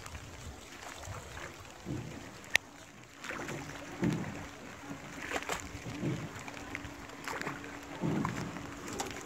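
A wooden rowboat being rowed, its oars dipping and pulling through the water in strokes about every two seconds with light sloshing. A faint steady hum runs underneath, and there is one sharp click about two and a half seconds in.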